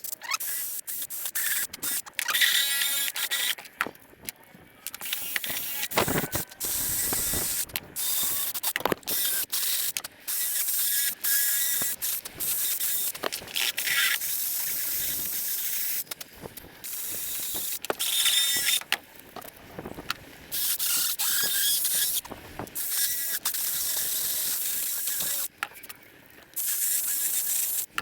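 Power grinding tool cutting away the moulded plastic inside an old cordless drill's housing, in many short stop-start passes with a hissing, high-pitched grind.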